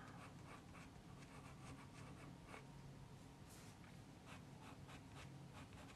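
Faint scratching of a pencil on watercolour paper, a run of short irregular strokes, over a faint low hum.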